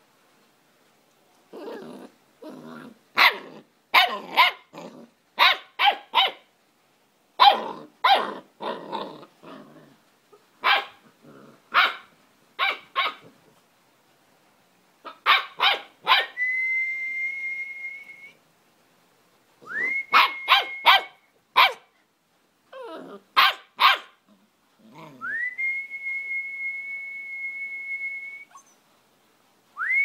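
Old English Sheepdog puppy barking in quick clusters of short, high barks. Three times a long steady high whistle sounds, each rising quickly at the start, and the barking goes on around it.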